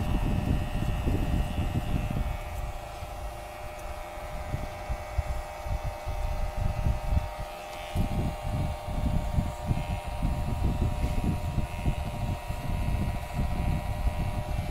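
Electric hair clippers running with a steady buzzing hum while cutting the short hair at the lower back of the head and nape, partly clipper-over-comb. Uneven low rumbling comes and goes beneath the hum.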